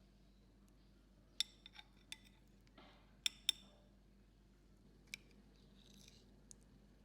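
A series of about eight light clinks of small hard objects at irregular intervals, each ringing briefly. The sharpest comes about a second and a half in, with two close together a little past the middle and a soft rustle between them.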